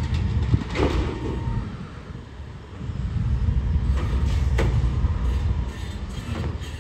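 Diesel garbage truck engine running under load, easing off around two seconds in and picking up again about a second later, with sharp metallic clanks from the truck's packing mechanism as it compacts yard waste.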